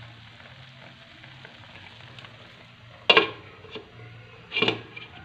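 Vinegar broth with fish and bitter gourd boiling in a pan, with a faint steady bubbling. Twice, about three and four and a half seconds in, a glass pot lid clinks sharply against the pan as it is set on.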